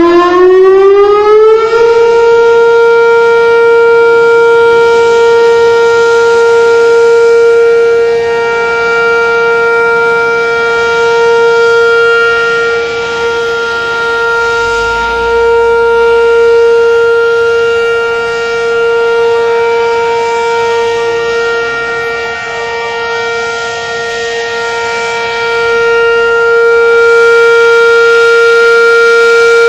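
Whelen outdoor tornado warning siren sounding its monthly test. Its tone rises over the first couple of seconds, then holds one steady pitch, the loudness swelling and fading a little through the middle.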